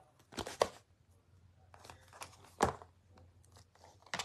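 Stamp being cleaned by hand on a stamp-scrubber pad: short scratchy rubbing and handling noises, with one sharp knock about two and a half seconds in.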